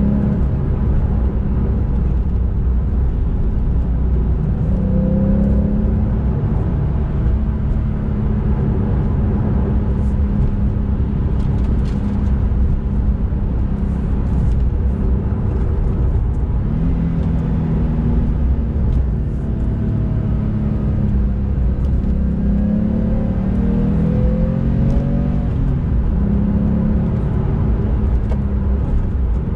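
Porsche 991 Carrera S's 3.8-litre flat-six engine heard from inside the cabin while driving, over a steady low rumble of road noise. The engine note rises in pitch under acceleration about five seconds in and several more times from about 17 to 26 seconds in.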